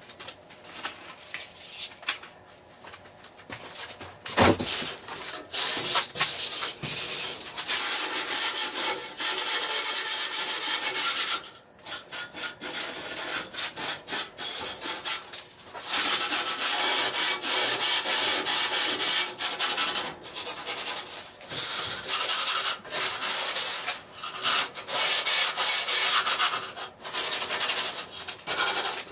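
Green Scotch-Brite abrasive pad scrubbed back and forth over a rusty steel truck-bed frame, taking off dirt and loose rust before a rust converter goes on. Quieter at first, with a single knock about four seconds in, then long runs of scrubbing with short breaks.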